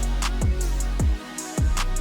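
Background music with a steady beat: electronic bass-drum kicks with falling pitch, hi-hat ticks and sustained bass notes.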